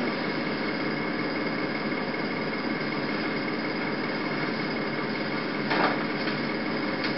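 Steady background noise with a faint high-pitched whine running through it, and a brief faint knock or rustle a little before six seconds in.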